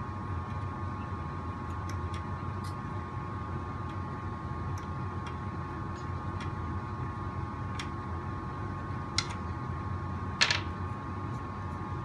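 Steady background hum with a few faint clicks and two sharper ticks late on, from small plastic and metal parts of an RC car chassis being handled and twisted by hand.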